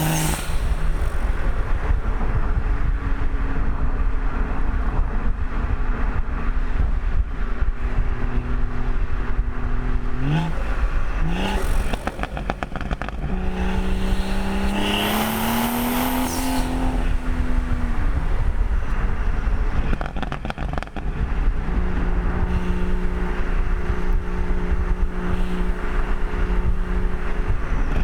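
Modified BMW M140i's B58 3.0-litre turbocharged inline-six on light throttle, with two short rev rises about ten seconds in and then a short pull in which the engine note climbs for about four seconds with a loud hiss on top, before it eases back to a steady cruise.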